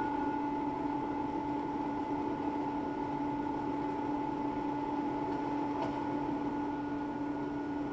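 Steady hum with a few held tones over an even hiss, and a faint click about six seconds in.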